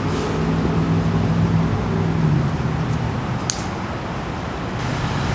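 Steady low mechanical hum, with a few faint ticks about halfway through.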